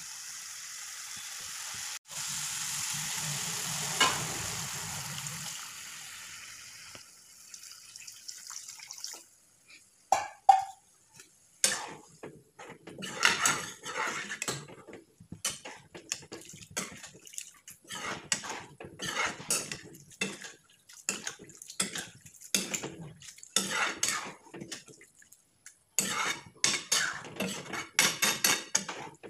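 Spiced potato and bean masala sizzling in a hot steel kadhai, the hiss fading away after about six seconds. From about ten seconds in, a steel ladle scrapes and clinks against the kadhai as the watery curry is stirred, in many short irregular strokes.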